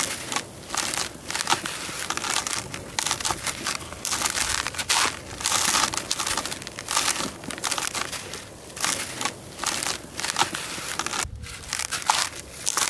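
Hands crushing and crumbling dry sand-cement lumps, a quick run of gritty crunches with grains pouring and scattering into a plastic tub. There is a brief pause about eleven seconds in.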